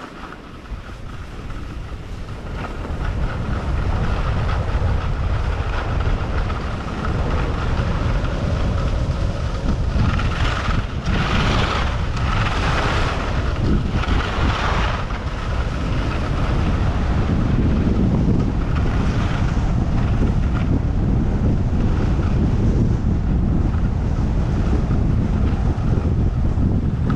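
Wind rushing over a GoPro action camera's microphone as a skier glides down a groomed snow track, with the hiss of skis on the snow. The rush builds over the first few seconds and then stays steady, with a few brighter scraping stretches about ten to fifteen seconds in.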